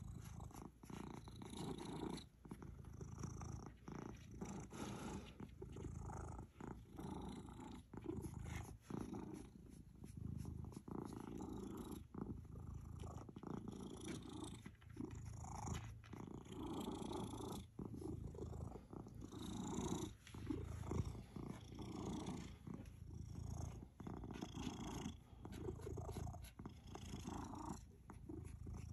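Ginger tabby cat purring steadily while its head is scratched, a contented purr that dips briefly every couple of seconds.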